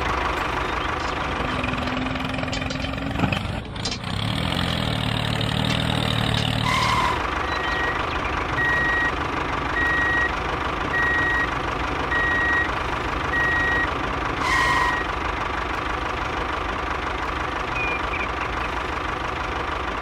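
A vehicle engine running steadily. A reversing alarm beeps about once a second for several seconds in the middle.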